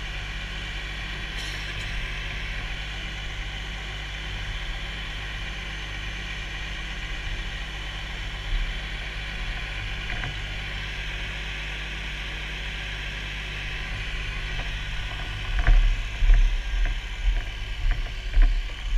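Fire engine's engine and pump running steadily at the pump panel, a constant drone with a higher whine over it. In the last few seconds there are irregular heavy low thumps.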